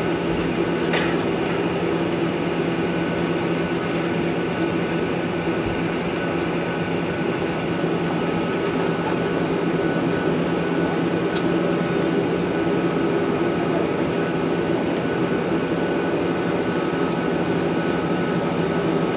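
Jet airliner's turbofan engines running at low taxi power, heard inside the cabin next to the wing: a steady roar with a low hum and a thin held whine.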